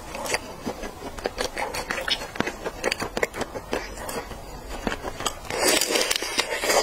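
Close-miked eating sounds: quick wet mouth clicks and crackles as raw red shrimp is peeled with gloved fingers and chewed. There is a louder stretch of sucking and biting near the end as a shrimp goes to the mouth.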